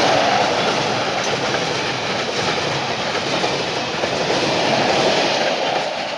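Freight train of rail tank wagons rolling past at speed: a steady loud noise of wheels on the rails, easing off slightly near the end as the last wagons go by.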